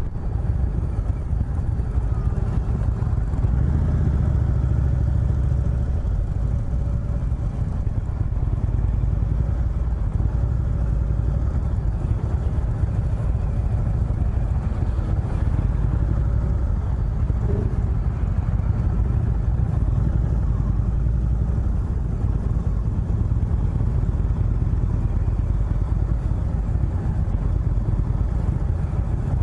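2018 Indian Chieftain's V-twin engine running steadily as the motorcycle is ridden, a continuous low rumble.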